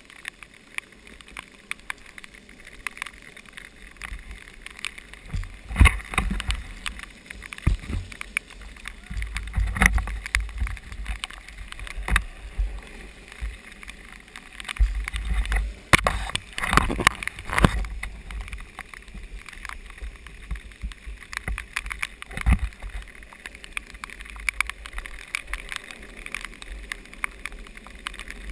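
Storm wind gusting and buffeting the microphone in low rumbles, mixed with scattered knocks and clatter from a longboard rolling over wet pavement.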